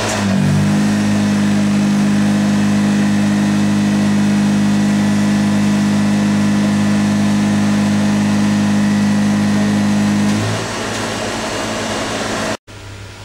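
Honda EX5500 super-silent generator running. About half a second in, the engine note rises and settles into a loud, steady hum under load. About ten seconds in, the hum drops away and the generator runs more quietly as the load comes off, before the sound cuts out abruptly near the end.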